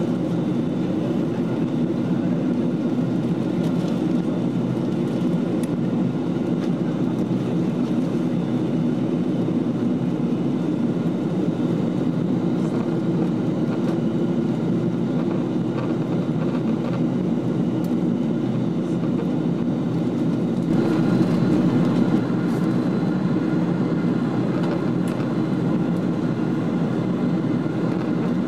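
Boeing 777-200 cabin at cruise, heard from a window seat over the wing: the steady low drone of the engines and rushing air. It swells slightly for a second or so about two-thirds of the way through.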